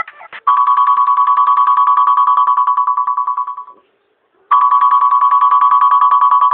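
Oppo phone ringtone in the style of an old telephone bell: a rapid trill on one pitch, rung twice, each ring about three seconds long with a short pause between.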